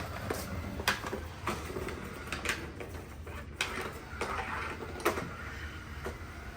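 Robot vacuum-mop running at the start of a cleaning run: a steady low hum with scattered clicks and knocks.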